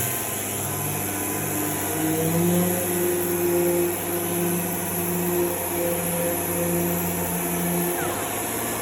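Dual-action sander with 600-grit paper running steadily while sanding primer surfacer, with a wavering motor tone and a steady hiss. The lower tones fall away near the end.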